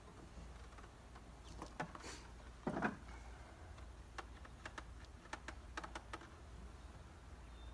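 Tin syrup feeder can being worked loose and lifted out of a wooden bee package box: scattered light clicks and knocks of metal on wood. There is one louder knock a little before 3 seconds in, and a quick run of clicks later on.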